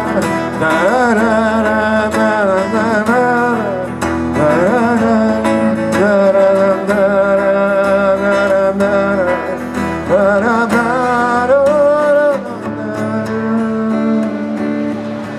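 Acoustic guitar strummed through an instrumental break of a Greek popular song, with a wavering lead melody over it. The lead drops out about twelve seconds in, leaving the guitar alone.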